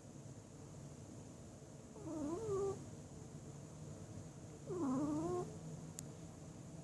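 A sleeping pet snoring with a pitched, wavering tone on each breath: two snores about three seconds apart, each dipping and then rising in pitch.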